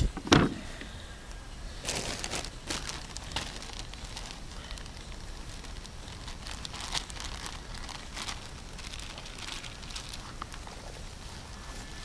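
Camp gear and food packaging being handled: rustling and scattered clicks, with one thump just after the start.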